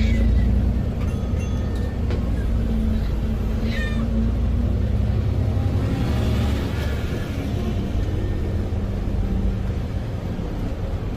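Alexander Dennis Enviro400 MMC double-decker bus running under way, with short high-pitched squeaks coming several times over the engine rumble. This is the strange noise the bus makes when accelerating, its cause unknown.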